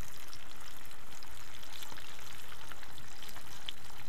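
Flounder frying in deep hot oil: a steady sizzle with scattered crackles and spatters.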